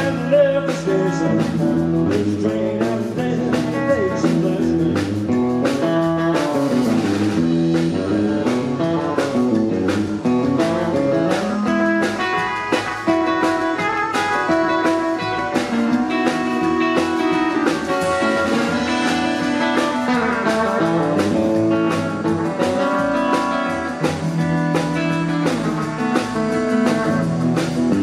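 Live rock and roll band of electric guitar, upright double bass and drums playing an instrumental break, the electric guitar taking the lead over a steady bass and drum beat.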